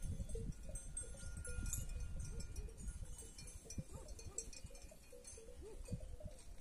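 Bells on a grazing flock of sheep clinking faintly and irregularly, with a few sheep bleating.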